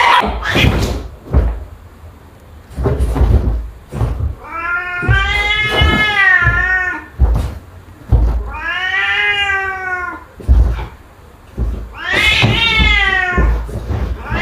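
Domestic cat yowling: three long, drawn-out calls, each rising and then falling in pitch, with short knocks and bumps between them.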